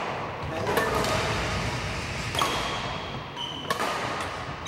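Badminton rally in a reverberant sports hall: several sharp racket hits on the shuttlecock, with a squeak of court shoes on the wooden floor in the middle.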